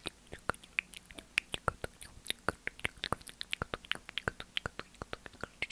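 ASMR mouth sounds: quick wet clicks and smacks of lips and tongue, irregular, several a second.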